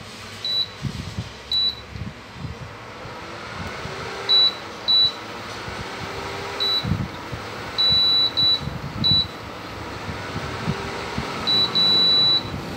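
Short, high electronic beeps at uneven intervals, two of them held for about half a second, over the low, irregular bubbling of a covered pot of coconut-milk stew at the boil.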